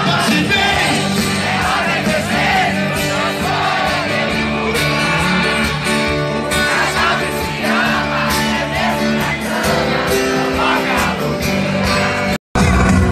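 Live sertanejo concert music heard from among the audience: the band playing and a voice singing, loud, with crowd noise. The sound breaks off for a moment near the end.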